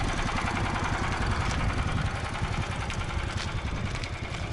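Small single-cylinder engine of a motorized tow sled idling steadily, a low uneven rumble.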